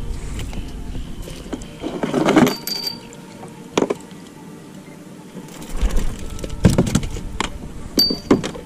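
Gear and catch being handled on a plastic kayak deck: scattered knocks, clinks and rattles, with a louder clattering stretch about two seconds in and sharp knocks near four and seven seconds.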